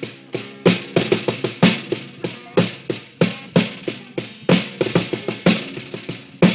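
Acoustic guitar strummed with a snare drum played along, sharp drum strikes coming about three a second in a steady rhythm.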